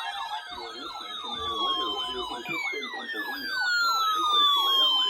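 Electronic siren-like alert sound: a warbling tone that rises and falls about three times a second, with slower tones sliding steadily down in pitch over it, one starting near the beginning and another about halfway through.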